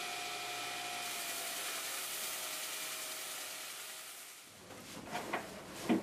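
Scroll saw cutting a thin wooden fretwork piece: a steady, hissy buzz with a faint whine, fading out about four and a half seconds in. Then a few light knocks and rustles.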